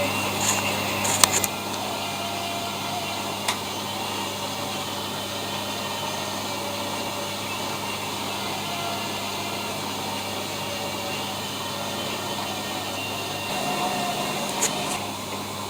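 ELIN WA 14 M washing machine running: a steady motor hum under even mechanical noise, with a few sharp clicks, one about a second in and one near the end.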